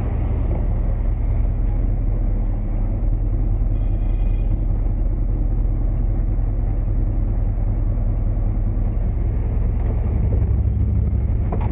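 Vehicle engine running with a steady low rumble while it drives into the scrapyard lane.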